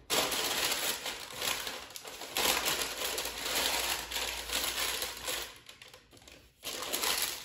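Parchment paper crinkling as a sheet is pressed and folded into a Dutch oven. It goes on for about five seconds, eases off, then crinkles again briefly near the end.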